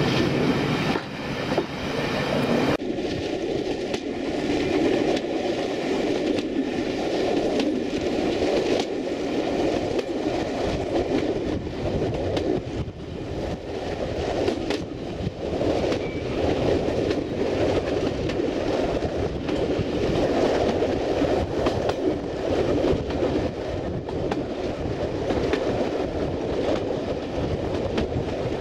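Train running along the track: a steady rumble of wheels on rail, broken by irregular clicks of rail joints. The sound changes abruptly about three seconds in.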